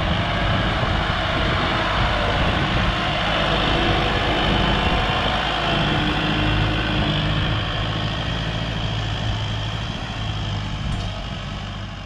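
Kubota M6040 tractor's diesel engine running steadily while it works the soil, gradually growing fainter over the last few seconds.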